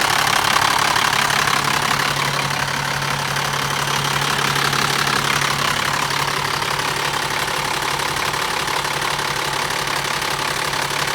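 BMW M57 straight-six diesel engine idling steadily with a fast, even clatter, which the owner takes for a noisy timing chain.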